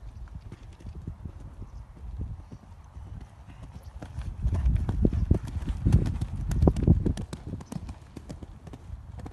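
Horse's hooves cantering on a sand arena surface over a showjumping fence: a run of hoofbeats, loudest from about four to seven seconds in around the landing, then fading as the horse canters away.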